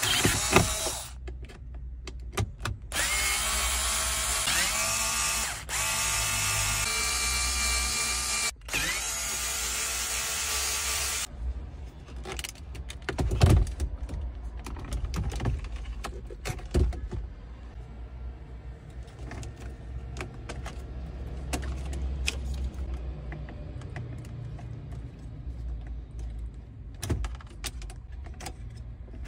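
Cordless drill-driver running in bursts as it unscrews a car radio's mounting screws. Its motor whine rises in pitch as it spins up and stops briefly once. It is followed by quieter clicks and rattles as the head unit is pulled from the dash and its connectors are handled.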